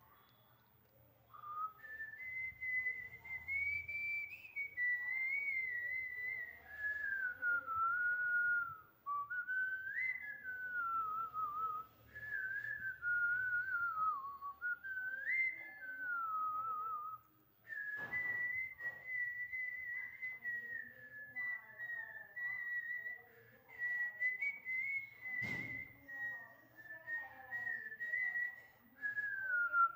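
A woman whistling a song tune, a single clear note sliding up and down in melodic phrases with short breaks for breath. A brief knock about three quarters of the way through.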